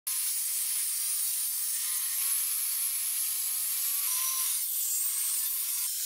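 Table saw cutting a pine board: a steady, high, hissing cutting noise with a faint whine from the spinning blade under it.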